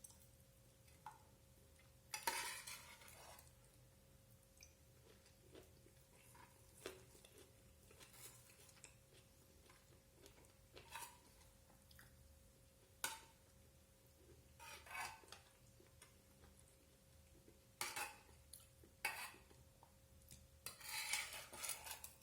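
A spoon clinking and scraping on a plate while eating: scattered light taps, with longer scrapes about two seconds in and near the end.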